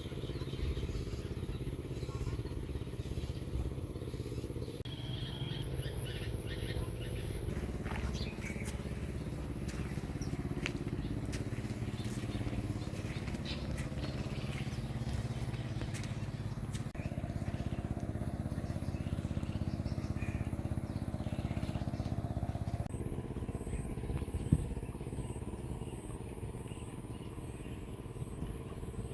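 Steady low rumble, like distant engines or traffic, with faint bird chirps above it. The background changes abruptly several times.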